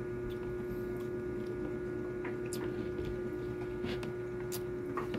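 A steady electrical hum, with a few faint clicks.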